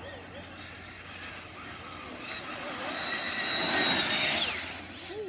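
Electric ducted fan and electric drive of a 1/8-scale 4WD RC buggy, a jet-like rushing whine that swells as the buggy closes in and is loudest about four seconds in as it slides past, its high whine then dropping in pitch and fading as it moves away.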